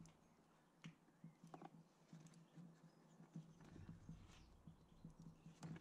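Near silence: faint room tone with a low steady hum and a few scattered faint clicks and knocks.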